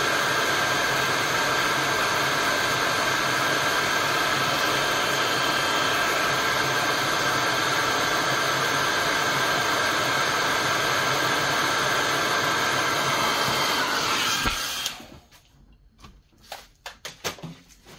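Hair dryer running steadily, then switched off about fifteen seconds in; the dryer is not hot enough for the job. A few faint handling clicks follow.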